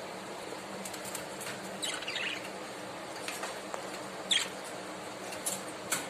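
Budgerigars giving a few short chirps: a brief chattering call about two seconds in and a sharp single chirp a little after four seconds, over a steady hiss.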